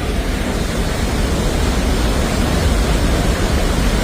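Loud, steady rush of floodwater in a swollen torrent, the flash flood of a cloudburst. It is heaviest in the low rumble and grows a little louder about a second in.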